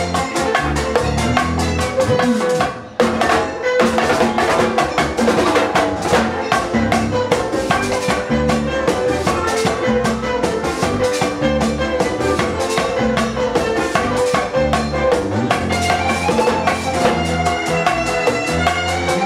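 A live Latin band playing: guitar, keyboard and hand percussion including a metal güira and congas over a steady beat. The band stops briefly about three seconds in, then comes straight back in.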